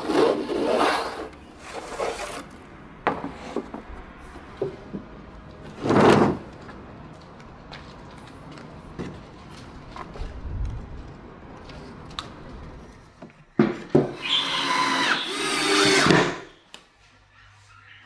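Wood being worked by hand: several bursts of rubbing and scraping, the longest near the end, with a few sharp knocks in between.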